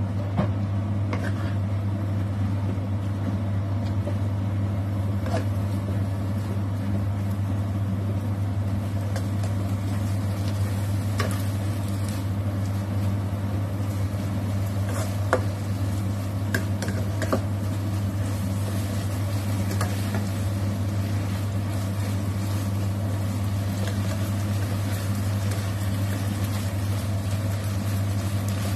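Stir-frying in a nonstick wok over a steady low hum, with a spatula giving a few scattered taps and scrapes against the pan as the kangkong and luncheon meat are tossed.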